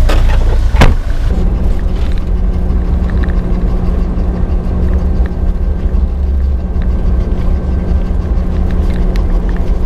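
Car interior noise while driving: a steady low engine and road rumble with a constant drone. A sharp knock sounds just under a second in.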